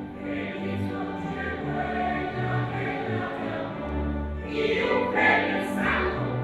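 A choir singing with an orchestra, sustained notes over a bass line, the music swelling louder about two-thirds of the way through.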